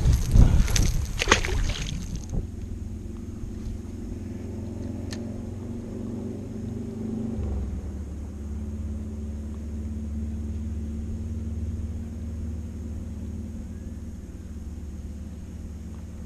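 Wind buffeting the microphone for the first two seconds, then the boat's motor running with a steady low hum that shifts to a new steady setting about halfway through.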